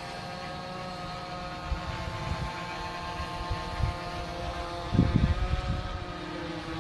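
Quadcopter hovering overhead, its motors and propellers giving a steady multi-toned hum. Gusts of wind hit the microphone a few times, the strongest about five seconds in.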